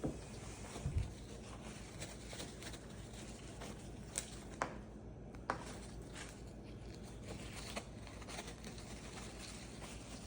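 Faint rustling of paper towel with a few scattered sharp clicks as a Moluccan cockatoo tears and chews at it with its beak.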